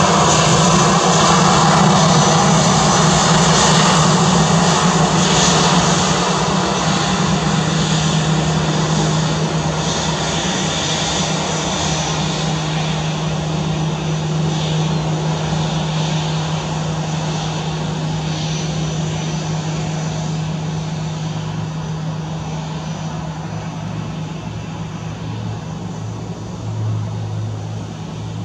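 Airbus A320-214 jet engines running on the landing rollout, a loud hum and rush loudest for the first six seconds, then fading steadily as the airliner slows and rolls away.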